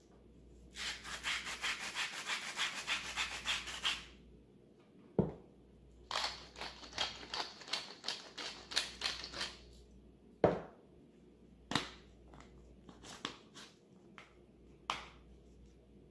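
Hand-twisted spice mill grinding over a bowl in two bouts of quick, even, gritty strokes, each a few seconds long. Between and after the bouts come a few sharp knocks, the loudest about ten seconds in, as the mill is set down on a wooden cutting board, then some lighter clicks.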